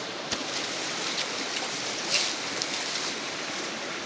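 Steady rushing hiss with brief crackles of leaves and branches as someone pushes through dense undergrowth, and a sharp click about a third of a second in.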